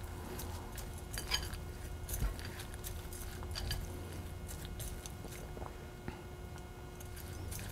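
Silicone spatula stirring chocolate chips into a stiff peanut-butter and oat paste in a glass bowl: soft sticky stirring and scraping with scattered light clicks against the glass.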